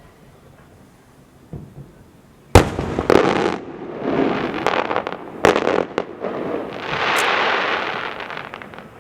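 Fireworks going off: after a quiet start comes one sharp, loud bang, then several more bangs and a long crackle that swells and dies away near the end.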